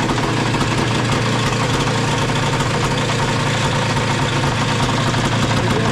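Engine idling steadily on a freshly fitted Keihin PWK 32 carburetor, an even, smooth-running idle.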